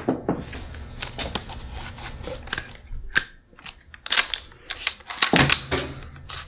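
Sharp metallic clicks and clacks of a semi-automatic 12-gauge shotgun's action being handled, with dummy shells caught in a double feed after the shell-release button was bumped. The clicks come irregularly, with the loudest cluster in the second half.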